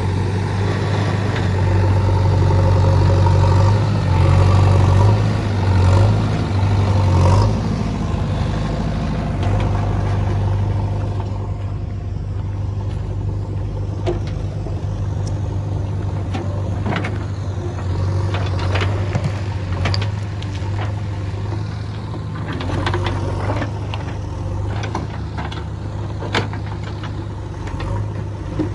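JCB 3DX backhoe loader's diesel engine running steadily, working harder and louder for the first several seconds, then easing. From about halfway through, the backhoe bucket knocks and scrapes against rocks and soil in a scattering of sharp clanks.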